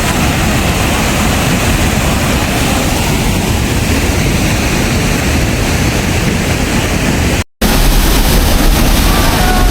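Steady roar of falling water from a hot-spring waterfall close by, with a heavy low rumble. It breaks off for a moment about seven and a half seconds in, then comes back with more low rumble.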